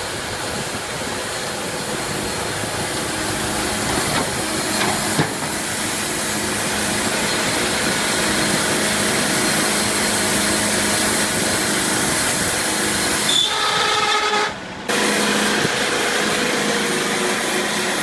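Sawmill machinery running with a loud, steady, noisy hum. The sound cuts out briefly about three-quarters of the way through, then resumes.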